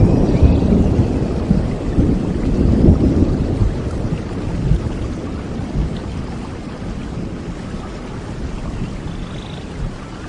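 Steady rain with a long roll of thunder, a deep rumble that is loudest at the start and dies away over several seconds.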